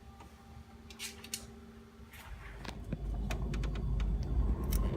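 Scattered light clicks and clinks of metal parts as the engine-bay cross brace is fitted. A low rumble rises over the second half.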